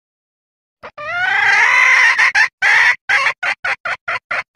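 Female junglefowl calling: one long call that rises in pitch, a second shorter note, then a quick run of short clucks about five a second. This is the hen's call asking to mate, played as a lure to draw in junglefowl cocks.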